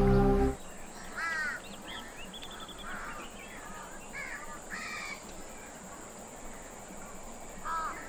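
Crows cawing: short, harsh calls come singly and in small groups at irregular intervals.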